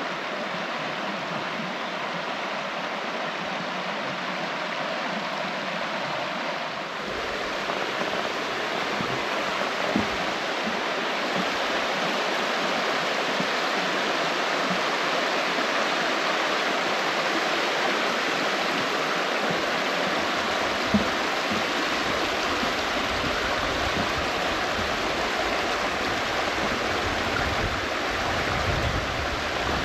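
A rocky hill stream rushing steadily over stones, the sound growing fuller about seven seconds in. Two brief knocks stand out, one about ten seconds in and one about twenty seconds in.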